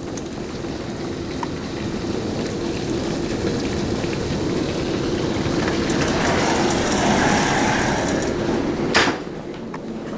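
Storm wind and rain rushing steadily against the house, building over several seconds and then cutting off sharply with a click about nine seconds in.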